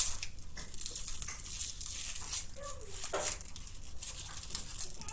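Small plastic toy packaging crinkling and rustling as it is handled, starting with a sharp crackle. A brief sliding, whine-like tone comes about two and a half seconds in.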